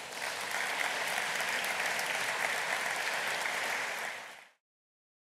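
Audience applauding, a steady even clapping that fades out quickly about four and a half seconds in.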